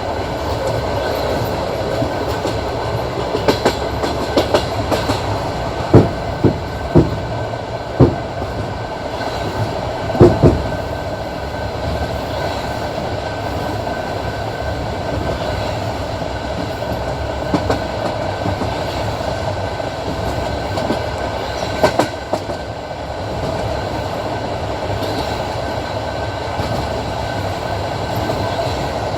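Passenger train carriage running along the track, with a steady rumble of wheels on rail. Sharp wheel clacks over rail joints stand out in a cluster about 6 to 10 seconds in, and again near 22 seconds.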